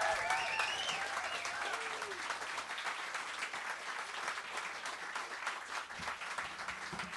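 Audience applauding, the clapping slowly dying down, with a shout or two from the crowd near the start.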